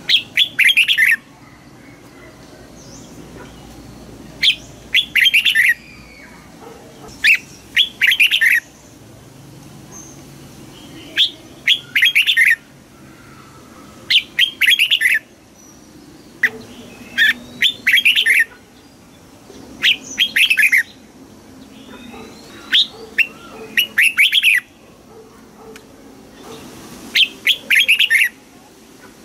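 Red-whiskered bulbul singing: short, rapid, warbling phrases of whistled notes, about one every two to three seconds.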